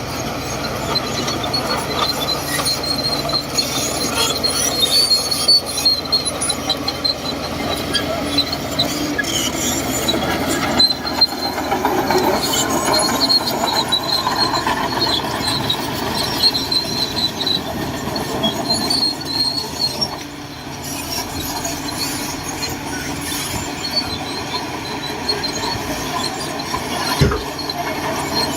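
Shantui DH17C2 crawler bulldozer working, its diesel engine running steadily while the steel tracks give a high squeal that comes and goes.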